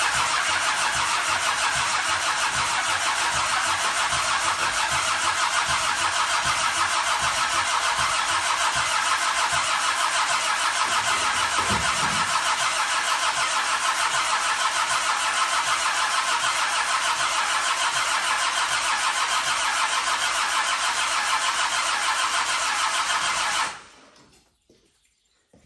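Land Rover Defender's Td5 five-cylinder diesel turned over on the starter motor for a long, steady crank that never catches, stopping suddenly near the end. The engine is not firing because it is not getting fuel.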